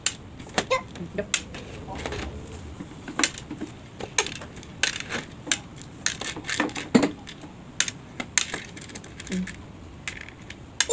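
Small coloured craft pebbles clicking and tapping against a plastic bowl and plate as they are picked out and set down, in scattered irregular clicks.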